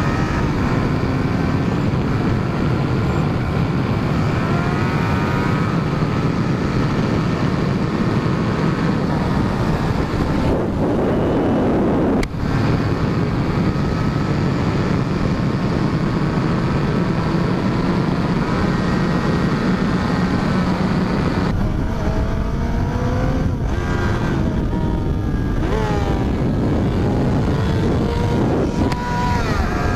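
Honda CBR600RR inline-four engine pulling at highway speed, heard from on the bike over heavy wind rush. Its pitch rises and falls with the throttle, with a brief dip about twelve seconds in and several quick rising revs in the second half.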